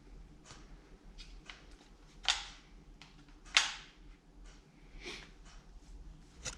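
Light clicks and knocks from car door parts being handled, with two sharp, loud snaps about two and three and a half seconds in.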